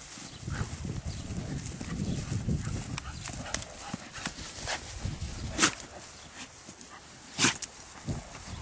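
A Thoroughbred gelding's hooves thudding on grass as it canters and trots loose around a pasture. Two short sharp sounds stand out, one about five and a half seconds in and one about seven and a half seconds in.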